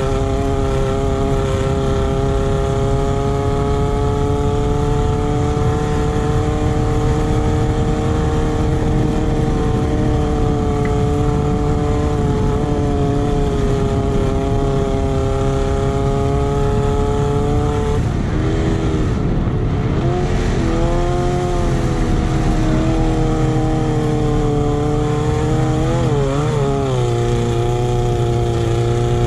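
Off-road race buggy's engine running hard at high, steady revs, over a constant rush of wind noise. About 18 seconds in the revs dip and climb back a few times, and again briefly near the end.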